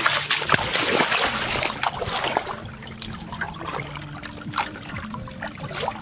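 Shallow running water splashing under wading bare feet, loudest in the first couple of seconds, then easing to a steady trickle of flowing water.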